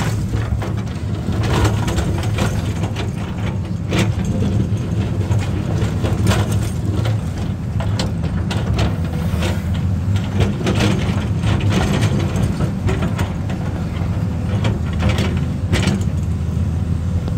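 Excavator's heavy diesel engine running steadily under load, with frequent sharp knocks and clatter over the drone.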